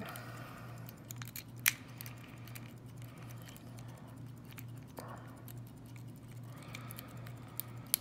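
Scattered small metallic clicks and scrapes of a lock pick working the pins of a Master Lock lockout padlock held under light tension, over a steady low hum.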